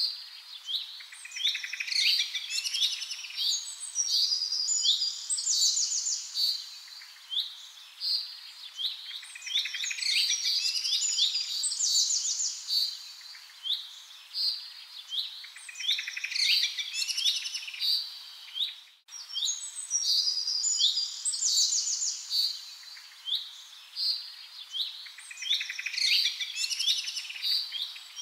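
Birds chirping and trilling in a short recording that repeats about every eight or nine seconds, with a brief dropout a little past the middle.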